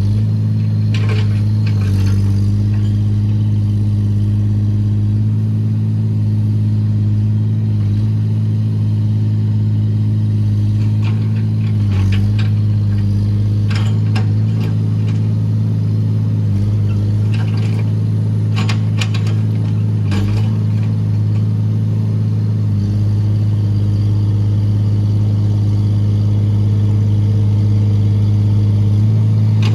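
Excavator's diesel engine running steadily under work, with scattered metallic clanks and knocks from the machine as it handles logs.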